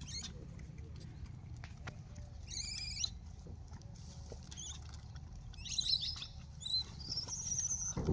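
High-pitched squeaky animal calls in a few short warbling bouts, the last a longer held whine near the end, over a steady low rumble.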